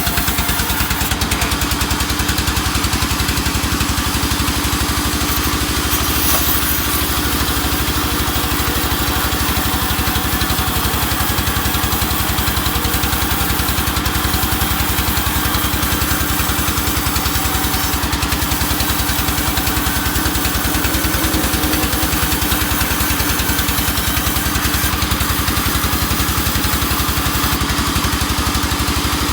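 An engine running steadily at an even, unchanging speed, with regular firing pulses throughout.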